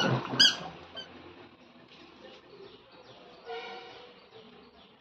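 Short high-pitched squeaks, two within the first second, then a fainter pitched call about three and a half seconds in, over low background sound.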